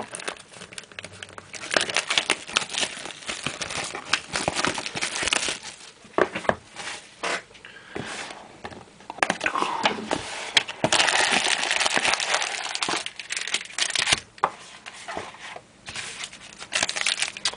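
Clear plastic wrapping being crinkled and torn open by hand: irregular crackling bursts, busiest about eleven to fourteen seconds in.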